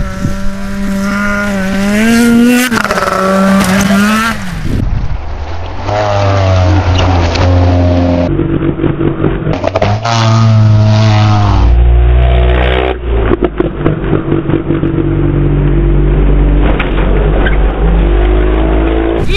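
Snowmobile engines revving hard and running at speed, the engine pitch rising and falling as the sleds are throttled up for jumps. The sound changes abruptly several times where separate clips are cut together.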